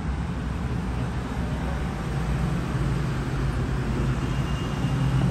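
Steady low rumble of outdoor ambient noise with a low hum, growing slightly louder toward the end.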